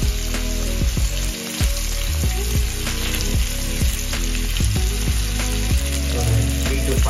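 Fish steaks sizzling steadily as they shallow-fry in hot oil on a cast-iron tawa. A background music track with a regular beat plays underneath.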